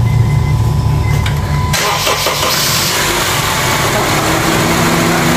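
Honda CR-V 2.4-litre four-cylinder engine being started: it catches less than two seconds in with a sudden rush of noise, then settles into a steady idle. The engine mount has just been shimmed with washers so its bracket no longer knocks on the worn mount, and it runs without vibration.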